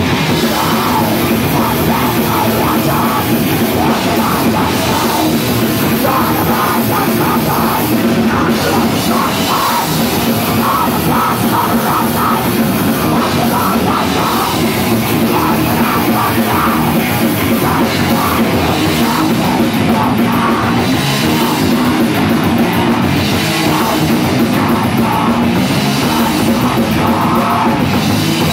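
Live metal band playing loud and steadily: distorted electric guitar over a drum kit, with a fast, driving rhythm.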